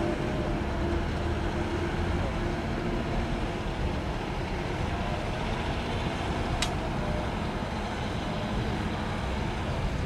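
Heavy diesel earthmoving machinery running steadily, with one brief sharp high click about two-thirds of the way through.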